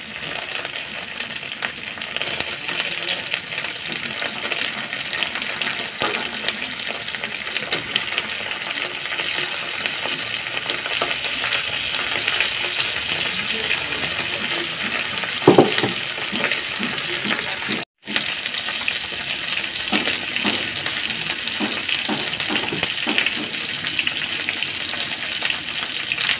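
Chicken wings sizzling steadily as they fry in hot oil with onion, garlic and ground spices in a pan. A cooking spoon knocks and scrapes against the pan now and then, loudest about fifteen seconds in. The sound cuts out for an instant a little later.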